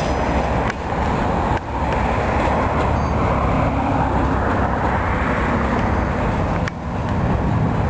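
Slow freight train rolling past at close range, caboose first: a steady low rumble of wheels on rail, broken by a few brief sudden dips about a second in, near two seconds and near the end.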